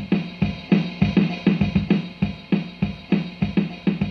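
Built-in drum machine of a NUX MG100 guitar multi-effects processor playing its 'Modern 2' pop pattern: a programmed kick, snare and cymbal groove in 4/4, with steady drum hits about four times a second.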